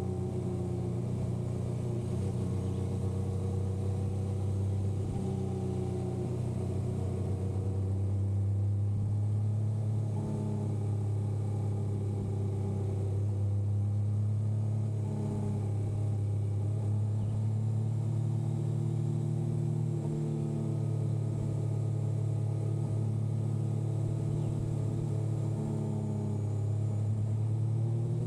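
Yamaha motorcycle engine running steadily under way, its pitch drifting gently up and down with the throttle several times.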